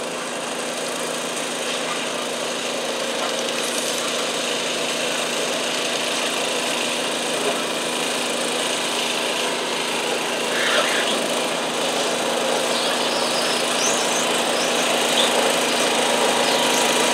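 International Harvester Cub Cadet garden tractor engine running steadily under load while dragging a stoneboat sled, getting gradually louder as it comes closer.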